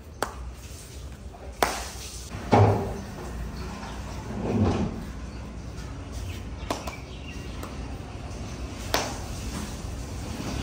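Kitchen clatter: a few sharp knocks and two heavier thuds, the loudest about two and a half seconds in, over a steady low rumble.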